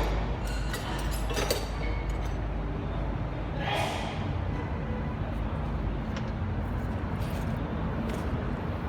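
Engine running steadily with a low rumble, with a few brief knocks and a short louder noise about four seconds in.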